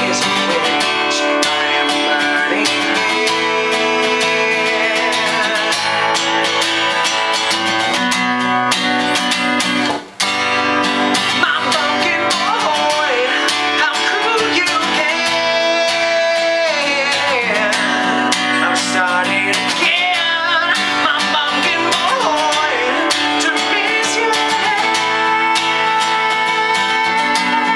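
Acoustic guitar strummed steadily in a song, with a wavering melody line above the chords and a brief drop-out about ten seconds in.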